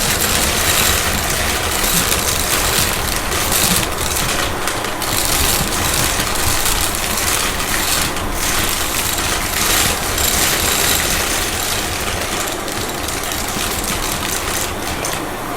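Shark vacuum cleaner running, a steady full-power motor and suction noise that wavers in level, with a few short dips.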